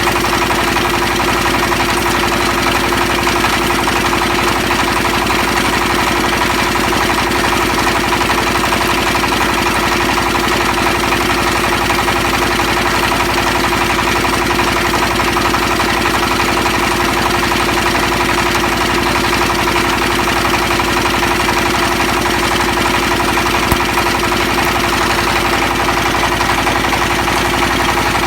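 Grain-puffing extruder machine (cối nổ bỏng) running steadily on a test run after repair, a constant mechanical hum with no change in speed.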